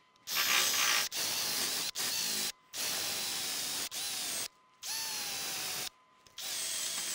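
Cordless drill spinning a wire cup brush against the sheet steel of a car's rear window channel, scrubbing it down to bare metal. It runs in short bursts of about a second, stopping and starting six or seven times, and each burst opens with a brief falling whine as the motor spins up.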